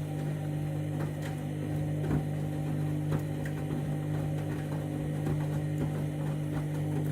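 Candy washing machine running its main wash: a steady motor hum with a few light knocks from the drum.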